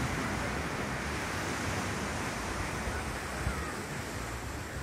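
Steady wash of ocean surf: an even, continuous rush of noise.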